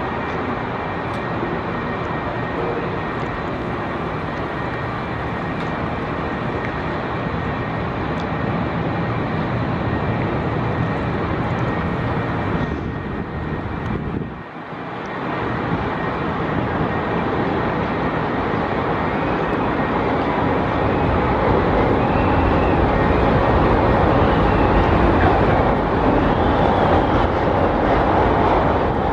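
Chicago 'L' rapid-transit train running over the elevated track structure, a steady rumble of wheels on steel rail. The sound dips briefly about halfway, then grows louder toward the end, with a faint wavering squeal.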